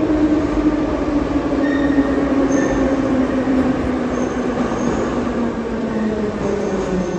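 Rail train running, with a steady rumble and a motor whine that falls slowly in pitch as it slows.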